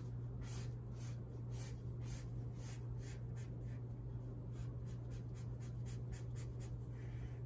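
Felt-tip marker rubbing back and forth on paper, colouring in an area: short scratchy strokes about two a second, quickening past the middle, over a steady low hum.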